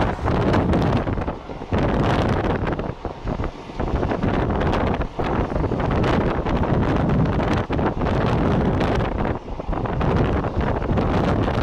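Wind buffeting the microphone at the open window of a moving train, gusting and dipping irregularly over the steady rumble of the train running along the track.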